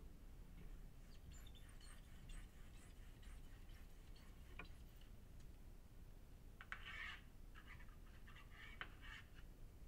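Near silence: faint outdoor background with scattered light ticks and short scratchy sounds, a small cluster of them about seven seconds in.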